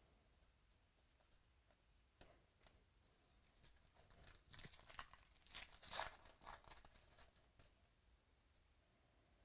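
Foil wrapper of a 2018 Donruss Baseball card pack being torn open by hand. It crinkles in a run of short crackles from a few seconds in, loudest about two-thirds of the way through, then dies down to quiet handling.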